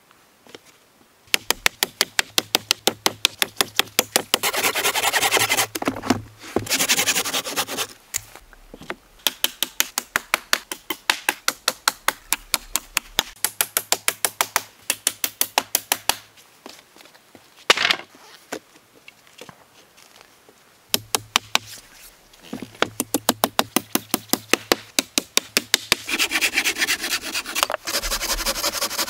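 Hammer driving nails into pallet-wood framing in runs of quick, evenly spaced blows. Near the end a hand saw rasps through a pallet board.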